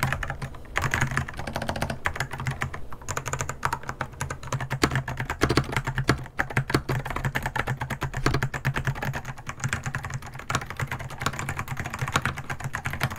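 Fast, continuous typing on a MelGeek Pixel LEGO-built mechanical keyboard fitted with blue switches: a rapid, unbroken run of sharp, clicky keystrokes.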